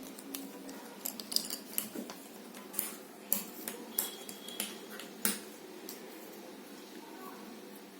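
Jigsaw puzzle pieces being handled and fitted together: a string of small sharp clicks and taps, mostly between about one and five and a half seconds in.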